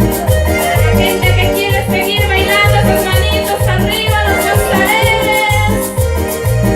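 Latin dance music with a steady, heavy bass beat. A high, wavering melody line comes in about a second in and drops out near the end.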